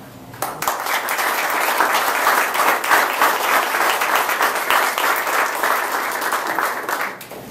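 Audience applauding, a dense steady clapping that starts about half a second in and cuts off abruptly near the end.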